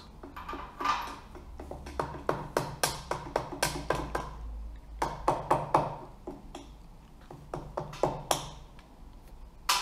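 Small rubber mallet tapping the camshaft bearing caps on a Honda CBX cylinder head to free them: quick runs of light, ringing taps, several a second. There are a few more taps after a pause, and a stronger knock near the end. The caps stick because the cams are pressing down on the valves.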